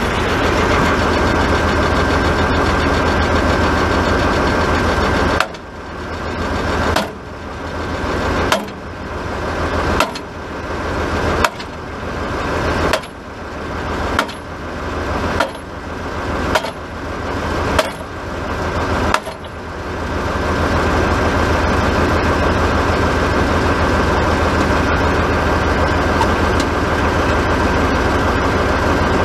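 Sledgehammer striking a rusted steel pipe joint about eleven times, roughly one blow every second and a half, to break the rust while the pipe is held under pulling tension. A tractor engine idles steadily under and after the blows.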